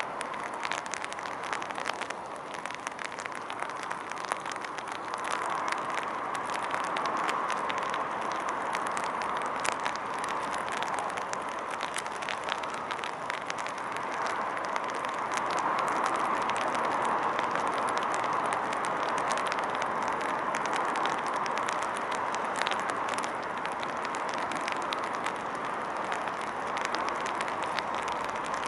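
Large fire burning: a steady rushing noise with constant small crackles, swelling a little in the middle.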